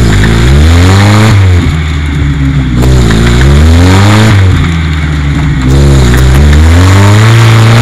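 Suzuki Samurai 4x4's engine revving hard under load as it pushes through deep mud, the revs climbing and dropping back several times.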